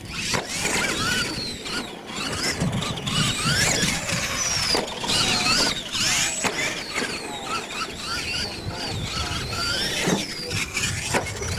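Electric RC monster truck motor and gearing whining, rising and falling in pitch as the throttle is worked, with a few sharp knocks from the trucks landing and bumping on the ramps.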